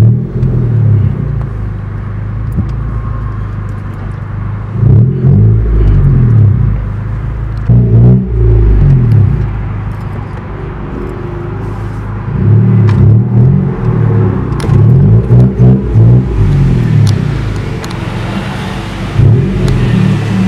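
Car engine heard from inside the cabin, running steadily at low speed, with several brief louder stretches where the pitch bends up and down as it is driven slowly into a service bay.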